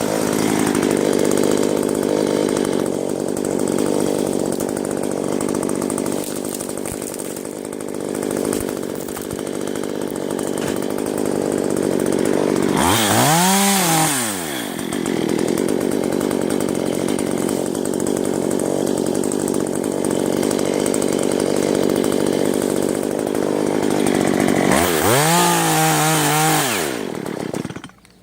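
Two-stroke chainsaw cutting wood, running low and steady under load. Twice, about halfway and near the end, it revs up high and drops back. The sound cuts off abruptly just before the end.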